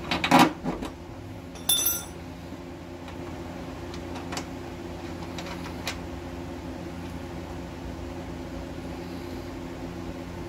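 Small metal bolt handled by hand against the truck's underbody: a few knocks at the start and a short metallic clink about two seconds in, then occasional faint ticks over a steady low hum.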